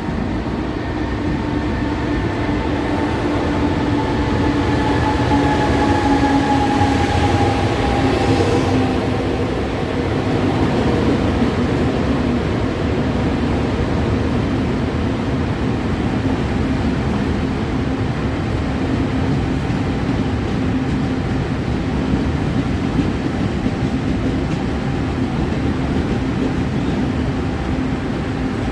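Tze-Chiang express train pulling into a station and slowing, a steady rumble with a whine that falls in pitch as it decelerates. A brief hiss comes about eight seconds in.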